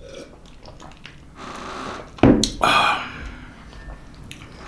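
Tea being drunk from a glass jar: faint gulping and swallowing, then a sudden loud knock about two seconds in.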